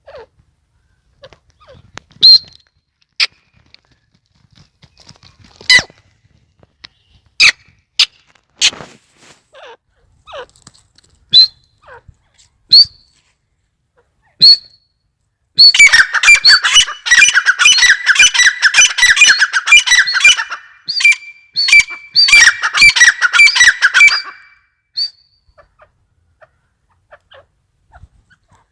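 Grey francolin calling: scattered sharp single notes at first, then from about halfway through some nine seconds of rapid, dense repeated calling with a short break in the middle.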